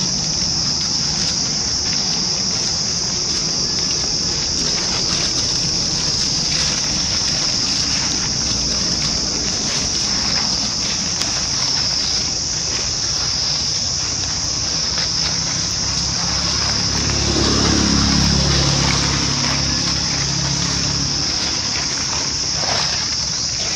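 Steady high-pitched chorus of insects, with faint crackles of dry leaves. About three-quarters of the way through, a low hum swells and fades.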